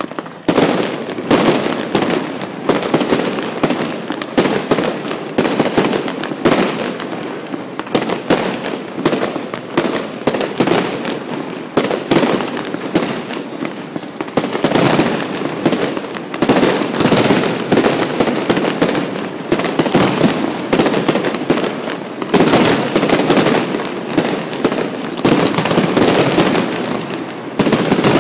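Aerial fireworks display: a dense, continuous barrage of bangs from shells bursting overhead. It starts suddenly right at the beginning and keeps on with many bangs a second.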